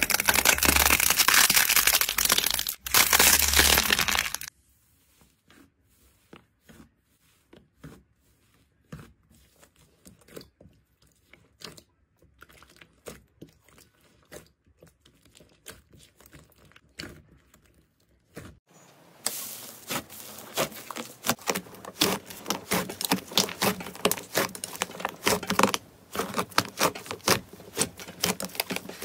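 Hands squeezing, poking and stretching slime, heard as sticky crackling and clicking. It is loud for the first four seconds, drops to scattered faint clicks through the middle, and grows dense again for the last ten seconds.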